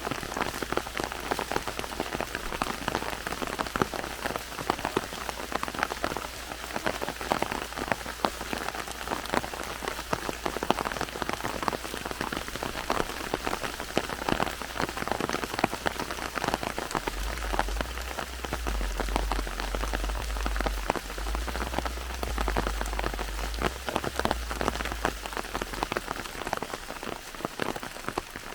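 Steady heavy rain pattering on forest leaves and ground, a dense patter of individual drops. A deep low rumble rises and fades through the later part.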